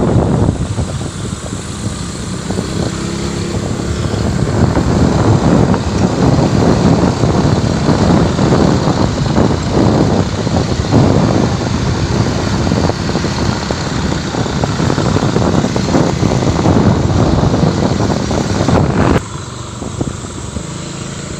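Motorcycle engine running while riding, with heavy wind buffeting on the microphone. The noise drops suddenly about two seconds before the end.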